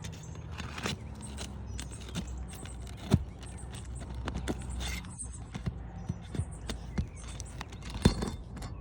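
Metal tool clinking and scraping against asphalt shingles as the last roofing nail is pried out: scattered small taps, with two sharper knocks about three seconds in and near the end, over a low steady rumble.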